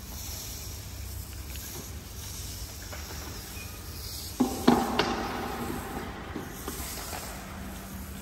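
Steady background hiss and low hum, broken about four and a half seconds in by a brief clatter of a few knocks with a short ring, like a hard object knocked or set down.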